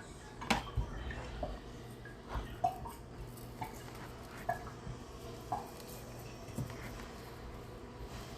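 Light, scattered clinks and knocks of kitchen utensils and dishes as food is prepared by hand, a small sound about every second, over a low steady hum.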